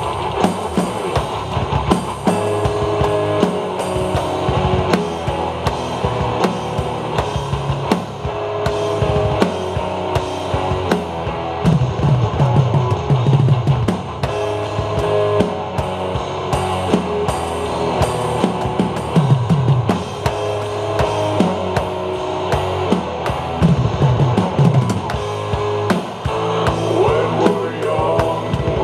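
Tama drum kit played along to a recorded rock song: steady kick drum, snare and cymbal hits over the band's guitar and bass.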